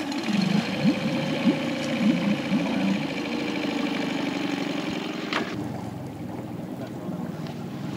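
Small tiller-steered outboard motor running steadily at low speed, pushing the boat along.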